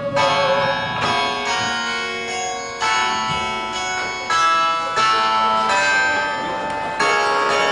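Orchestral film music: a run of held chords with plucked strings, each new chord coming in suddenly, about five over several seconds.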